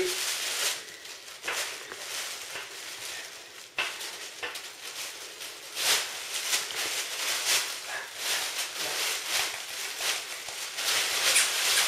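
Plastic bags crinkling and rustling under puppies' paws as they scramble about on them, in irregular crackly bursts.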